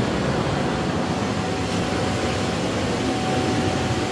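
Inflatable paint booth's electric blower running steadily, a rushing of air with a faint steady whine, as it fills the booth with air.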